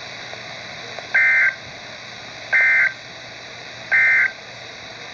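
Emergency Alert System SAME end-of-message data tones: three short bursts of digital warbling tone, each about a third of a second long, about a second apart, over steady radio hiss. They are the signal that the alert broadcast has ended.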